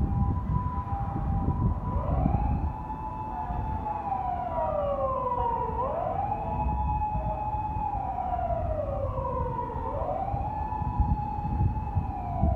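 A siren wailing: each cycle rises quickly, holds, then slides slowly down, repeating about every four seconds, over a low rumble.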